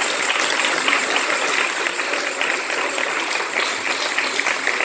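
Congregation applauding: many hands clapping in a dense, steady patter.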